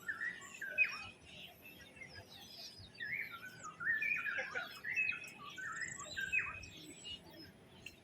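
Birds singing: phrases of short, stepped chirping notes, busiest from about three to six and a half seconds in.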